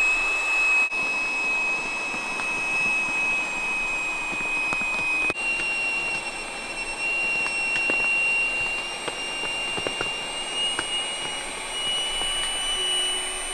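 Small handheld electric air pump running, inflating a packraft chamber through its valve with a steady high whine. About five seconds in the whine jumps a little higher, then creeps slowly upward in pitch.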